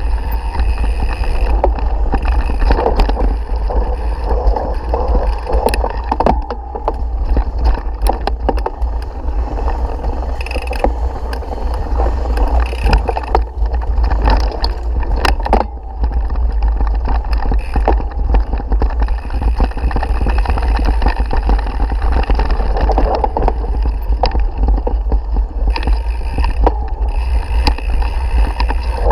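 Mountain bike ridden along a rough forest dirt trail, heard from a camera mounted on the bike: a steady low rumble of tyres and wind on the microphone, with frequent rattling clicks and knocks as the bike jolts over bumps.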